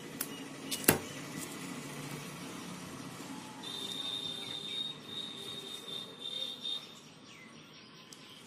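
Quiet handling of a crocheted bootie being hand-sewn, with a sharp click about a second in. A steady high-pitched trill runs for about three seconds from about four seconds in.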